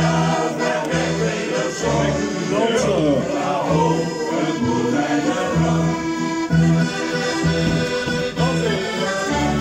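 Accordions playing an instrumental passage of a lively folk tune, with a steady bass-and-chord beat about twice a second under the melody.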